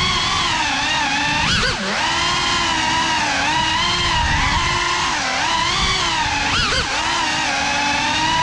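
FPV quadcopter's brushless motors and propellers whining, the pitch rising and falling with the throttle, with sharp dips about two seconds in and again near five and seven seconds.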